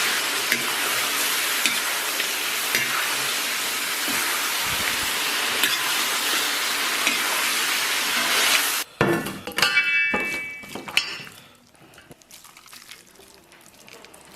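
Beef, chilies and onion stir-frying in a hot wok: a steady loud sizzle with scattered scrapes of the spatula. About nine seconds in the sizzle cuts off abruptly, followed by a brief clatter with a short ringing, then it goes quiet.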